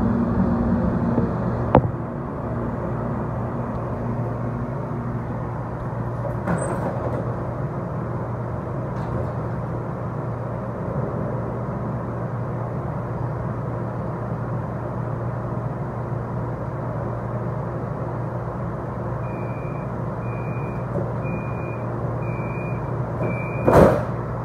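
Siemens S70 light rail car coming to a stop and standing at a station with its doors open, its equipment giving a steady low hum. Near the end five evenly spaced high door-warning beeps sound, and the doors shut with a loud thump.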